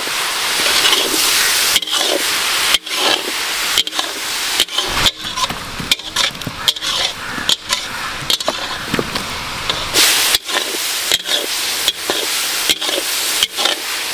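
Chopped onions, chillies and tomatoes frying in mustard oil in a pan: a steady sizzle, broken by many short clicks and scrapes.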